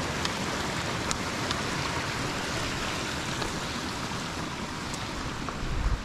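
Mountain stream rushing steadily over rocks below, with a few faint clicks of footsteps on a gravel path.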